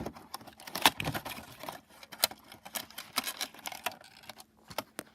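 A model train's box packaging being handled and pried open: irregular clicks, crackles and rustles of plastic and cardboard.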